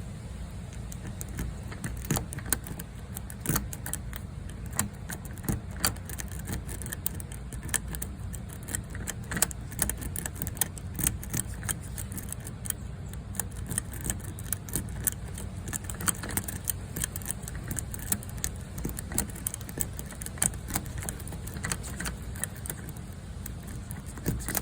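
Lock pick and tension wrench working the pins of a door lock cylinder: irregular light metallic clicks and scrapes, many each second, as the pins are raked. A steady low rumble runs underneath.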